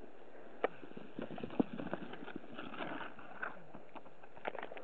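Irregular crunching and knocking on crusty snow, a quick run of sharp knocks and scrapes starting about half a second in and going on for about four seconds.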